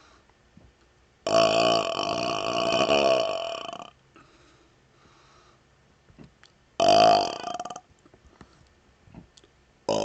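A man burping loudly: one long, drawn-out belch of about two and a half seconds, a shorter belch of about a second a few seconds later, and a third beginning right at the end.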